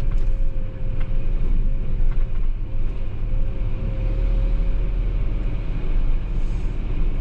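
Mitsubishi Fuso Super Great heavy truck driving, heard inside the cab: a steady low engine and road rumble, with a thin wavering whine over it for about the first five seconds.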